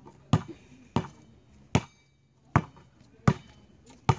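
A basketball being dribbled: six bounces at an even pace, a little under a second apart.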